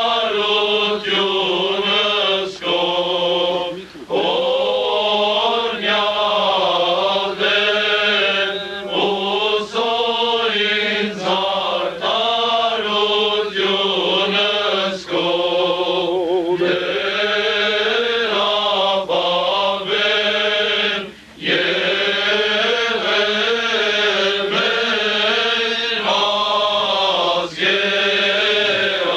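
Male choir of young men singing a liturgical chant together, the phrases broken by brief pauses about four seconds in and about twenty-one seconds in.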